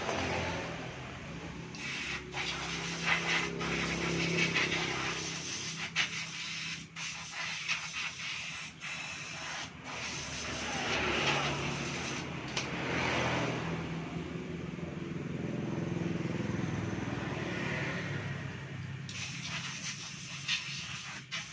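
Spray-cleaning the dirty flywheel magneto rotor of a scooter engine: uneven hissing spray surges with rubbing, scraping and small clicks of handling, over a low hum.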